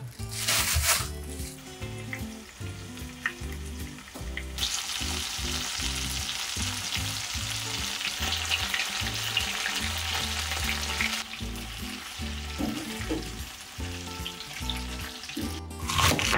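Chicken pieces sizzling as they fry in oil in a frying pan, loudest from about four seconds in to about eleven seconds in. Near the end a knife cuts through cabbage on a cutting board with a sharp crunch.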